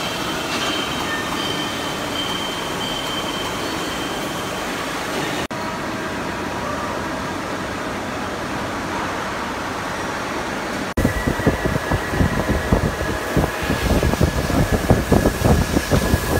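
Steady workshop machinery noise with a faint high whine. About eleven seconds in it changes to loud, uneven low rumbling.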